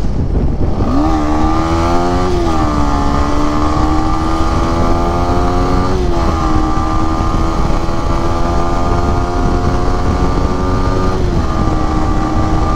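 Yamaha MT-15's single-cylinder engine accelerating hard up through the gears. The revs climb and drop sharply at quick upshifts about two and a half, six and eleven seconds in, over heavy wind noise on the microphone at speed.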